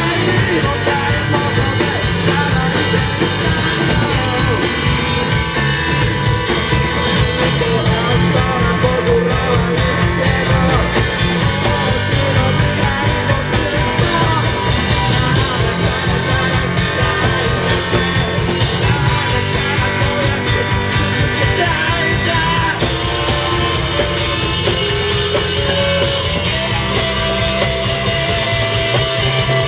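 A rock band playing loudly live: electric guitars, bass guitar and a drum kit, with a man singing into the microphone.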